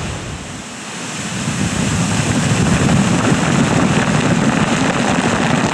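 Water and broken ice thrown up by TNT charges blasted under river ice, raining back down onto the river: a dense, even rushing splash that swells over the first couple of seconds. The low rumble of the blast fades away in the first second.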